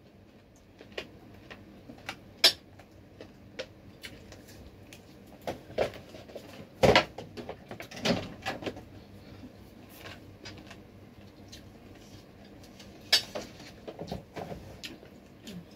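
Scattered clicks, knocks and rustles of seafood being eaten by hand: crab shells picked apart and dishes and foil trays handled on a table, with a sharper knock about 7 seconds in.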